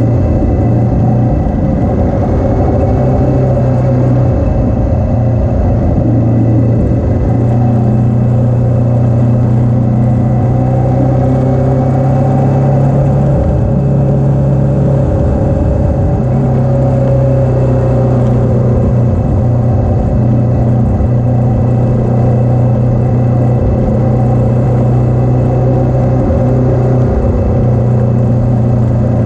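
Motorcycle engine running at a steady cruising speed, heard from a camera mounted on the moving bike, with wind rumbling on the microphone.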